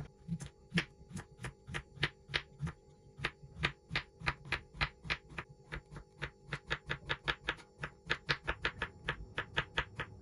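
Kitchen knife slicing a zucchini into thin rounds on a wooden cutting board, the blade knocking on the board with each cut. The cuts come in a steady run of about three a second, quickening to about five a second in the second half.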